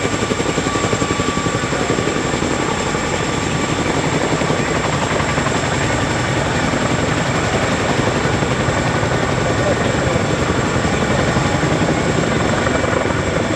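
Boeing CH-47 Chinook tandem-rotor helicopter flying low: a steady, fast rotor beat with a thin, steady turbine whine over it.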